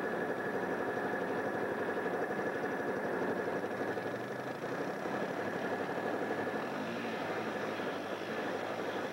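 Four-wheeler (ATV) engine running at a steady pulse as the quad is ridden through a mud hole.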